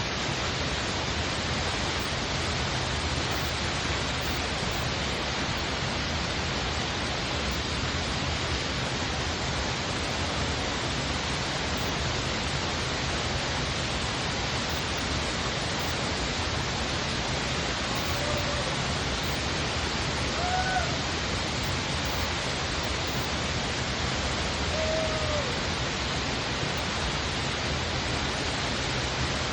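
Waterfall: a steady, unbroken rush of falling water, with a few faint short chirps past the middle.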